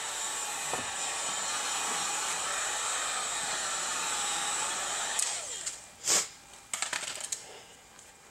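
Electric heat gun blowing steadily, then switched off a little past halfway, its whine falling as it winds down. A sharp knock and a few small clicks follow.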